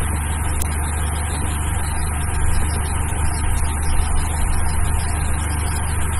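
Steady low hum and high hiss from the recording setup, with one short click about half a second in.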